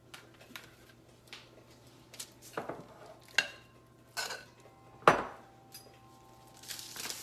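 Kitchen dishes and utensils clattering: a string of separate knocks and clinks, the loudest a little past halfway, a few leaving a short ringing tone.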